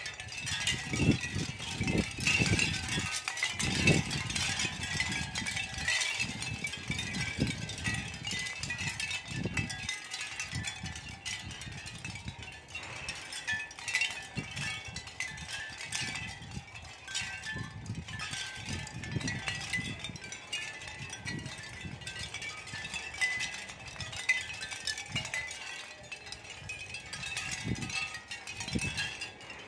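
Capiz-shell wind chime: many thin round shell discs clinking and tinkling against each other in an irregular, continuous patter as they sway. Low gusts of wind rumble on the microphone, strongest in the first few seconds.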